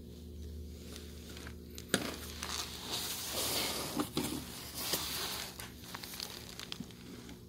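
Rustling, scraping handling noise with a few sharp clicks from a phone camera being moved around by hand, over a steady low electrical hum. The rustling is densest through the middle and fades near the end.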